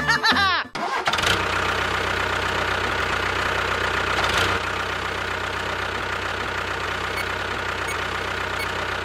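A motor running steadily for about eight seconds, starting about a second in after a brief swoop of curving sound-effect tones.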